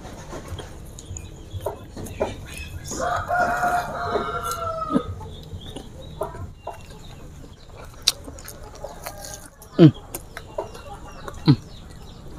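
A rooster crows once, a long held call about three seconds in, over scattered clicks of eating. Near the end come two short, loud, downward-sliding sounds.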